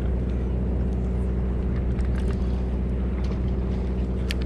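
Boat engine running with a steady low drone, with a few faint clicks near the end.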